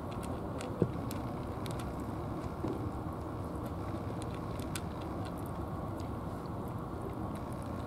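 Domestic cat eating from a bowl of dry kibble and fish, its chewing heard as irregular small crunchy clicks, over a steady low background rumble. One sharper knock comes a little under a second in.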